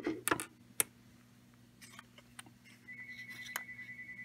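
Sharp clicks and knocks of the toy locomotive's small plastic and metal parts being handled and set down on a workbench, several within the first second. Later a faint, steady high tone with a quick flutter runs for about a second and a half.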